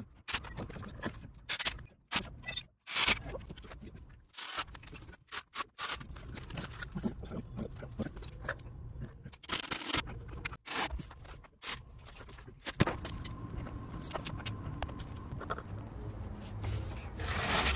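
Metal tools clinking and scraping during socket-wrench work on bolts under a van, in short clips that cut off abruptly every second or so. Over the last few seconds the sound turns steadier, with fewer clinks.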